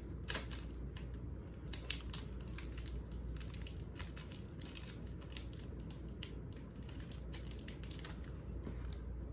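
Packaging of a makeup brush crinkling and rustling in a continuous run of quick, irregular crackles as the brush is unwrapped by hand.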